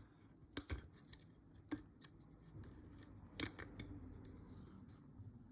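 Lock pick and tension tool being worked in a rusty laminated padlock's keyway: a scatter of sharp metallic clicks and small scrapes, bunched in the first four seconds.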